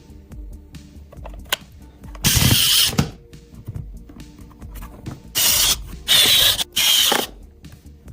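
A small handheld power tool runs in four short bursts: one about two seconds in, then three in quick succession a few seconds later. Faint background music plays underneath.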